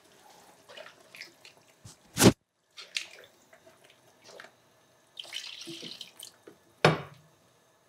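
Water poured slowly from a plastic measuring jug into a pan of tteokbokki sauce, with a wooden spatula stirring in the pan. Two sharp knocks, about two seconds in and near the end.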